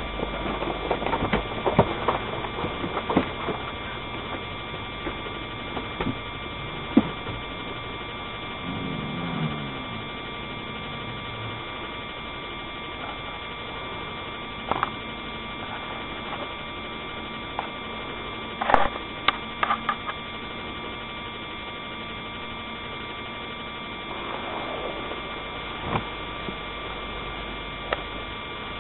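A steady electrical hum with a few high steady tones, broken by scattered short clicks and knocks, a cluster at the start and a few more later on.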